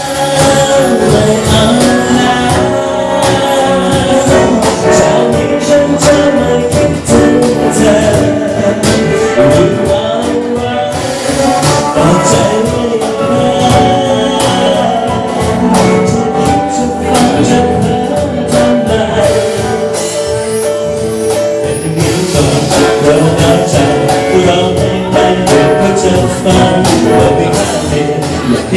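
A live band playing a song: a man singing through a microphone, backed by guitar, trumpet and percussion keeping a steady beat.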